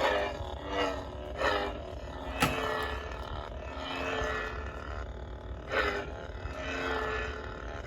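Electronic hum of a replica Jedi lightsaber's sound board, broken by swooshing surges every second or so and a sharp crack about two and a half seconds in.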